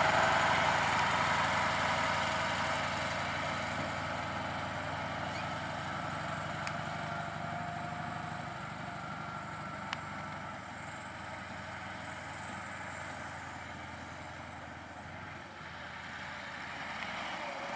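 KAMAZ-55111 dump truck's V8 diesel engine running as the truck drives off. It grows fainter over the first few seconds and then holds at a low, steady level.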